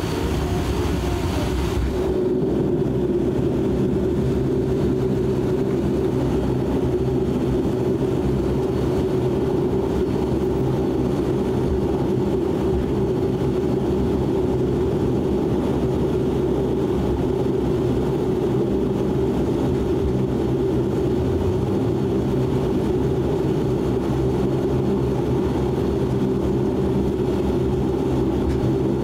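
Cabin sound of a De Havilland Canada Dash 8 Q400's turboprop engines and propellers running at low taxi power: a steady drone with several held tones. A higher hiss drops away about two seconds in.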